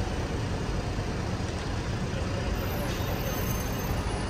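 Steady road-traffic noise of vehicles running outside a taxi rank, an even rumble with no single event standing out.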